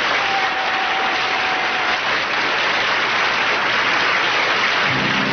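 Studio audience applauding after a song ends. Near the end, the orchestra begins playing the next number under the clapping.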